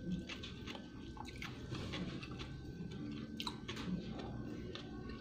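Close-up chewing of soft braised pork leg, with irregular wet smacking clicks from the mouth.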